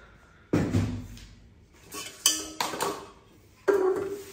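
Metal pot and lid clanking as they are handled and set down: about five knocks, some ringing briefly.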